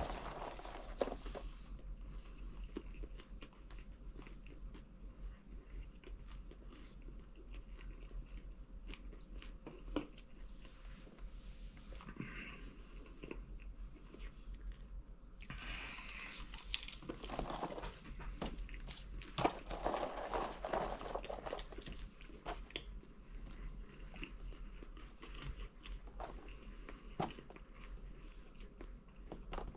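A person chewing popcorn in quick mouthfuls, with scattered crunches and crackles that come thickest partway through.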